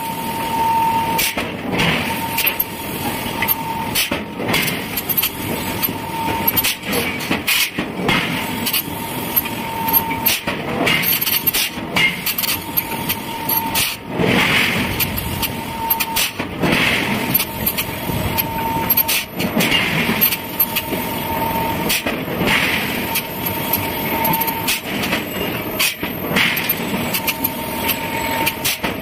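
Forging-shop noise from a heavy power hammer working steel: sharp metallic blows at irregular spacing, with bursts of hissing every two to three seconds.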